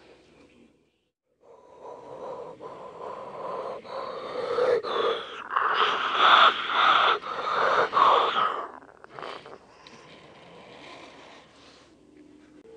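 Toy train running on plastic track close by: a small motor whirring with wheels clicking over the track, louder as it passes right by, then dropping off sharply about nine seconds in.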